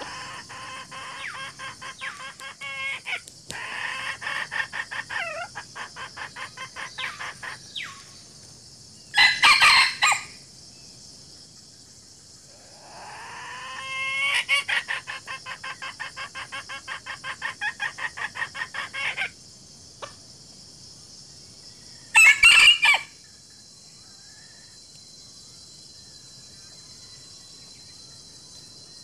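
Chickens clucking in long runs of rapid, evenly repeated notes, broken by two short, loud rooster crows, one about nine seconds in and one about twenty-two seconds in. A steady high insect drone runs underneath.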